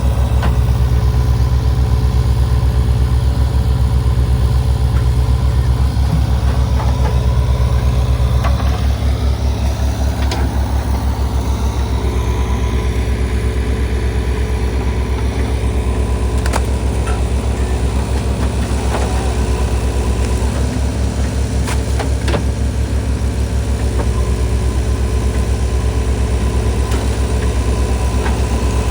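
Diesel engine of a JCB earthmover running steadily under load with a deep, pulsing drone, easing off slightly about eight seconds in. A few sharp knocks come through it.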